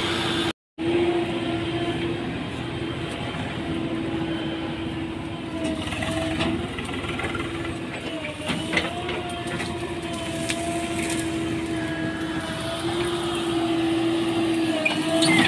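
Diesel engines of farm tractors and a JCB 3DX backhoe loader running steadily, a continuous drone at a held pitch. The sound breaks off for an instant just under a second in.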